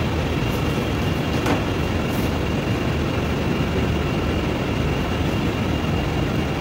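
Steady machinery hum in a print shop: a low rumble with a thin, steady high-pitched whine over it.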